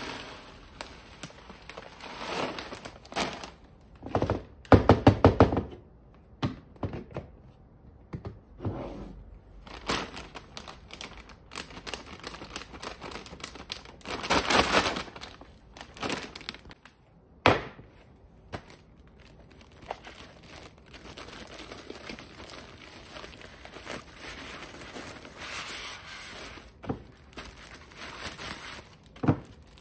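Groceries being handled and put away: dry granola rattling into a plastic storage container, a quick run of knocks about five seconds in, a plastic cereal bag crinkling around the middle, and scattered thunks as containers and packages are set down on a shelf.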